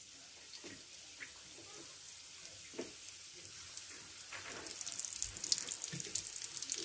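Samosas deep-frying in hot oil in a wok: a soft, steady sizzle with scattered pops that thickens into a denser crackling about four and a half seconds in, as another samosa is slid into the oil.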